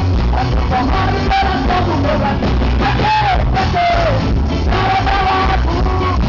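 A live band playing a rock-style worship song, with a strong bass line under a singer's voice; about three seconds in, a held sung note slides down in pitch.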